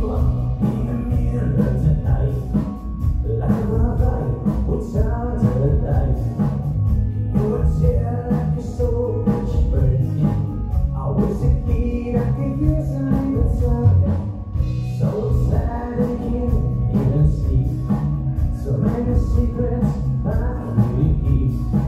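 Live band playing a song: a man singing over drums, electric guitar and keyboard, with a heavy low end.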